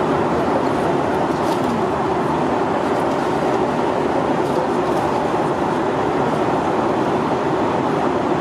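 Steady cabin noise inside a Boeing 737-800 in flight: an even rushing of airflow and engine noise that holds at one level throughout.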